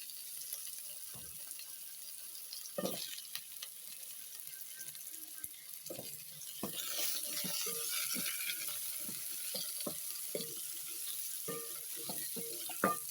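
Chopped potatoes and onions frying in a pan: a steady sizzle, with a spoon knocking and scraping against the pan as they are stirred. The sizzle grows louder about seven seconds in.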